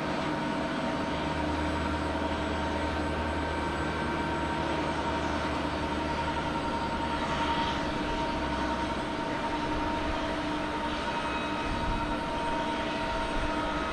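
Boeing 747-400's four turbofan engines running at low taxi power as the jumbo jet taxis and turns toward the runway: a steady whine with several held tones over a low rumble.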